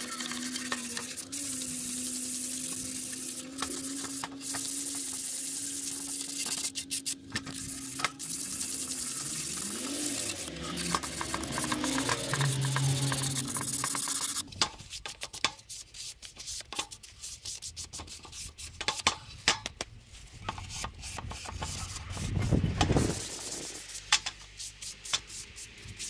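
Wood being sanded for a bird box: a steady hum under dense hissing abrasion for the first half, then irregular scratchy strokes.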